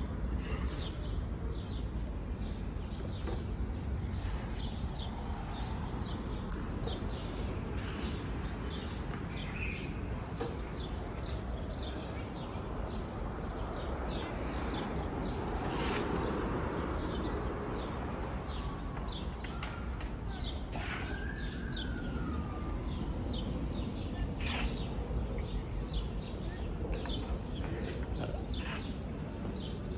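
Outdoor ambience: small birds chirping over and over, high and short, over a steady low background rumble. A little past the middle, a single sliding tone rises and then falls.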